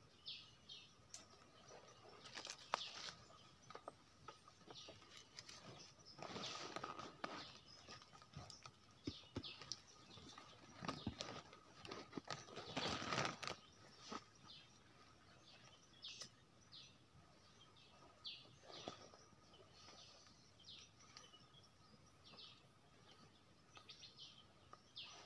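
Faint forest ambience: scattered short bird chirps, with a few soft rustles and a faint steady tone underneath.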